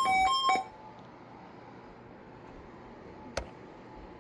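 Weather radio receiver's alert alarm: electronic beeps alternating between two pitches about four times a second, cutting off about half a second in. The alarm is set off by the weekly test of the NOAA Weather Radio warning tone. A faint hiss with a thin steady tone follows, and there is a single sharp click about three seconds in.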